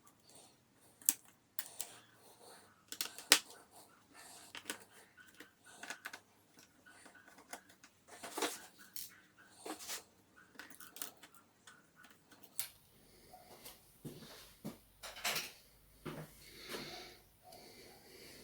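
Scattered small clicks, taps and light scrapes of hand tools and small laptop parts being handled while the Legion Y520's click board (touchpad button board) is taken out, with two louder clicks near the start. A faint low hum comes in about two-thirds through.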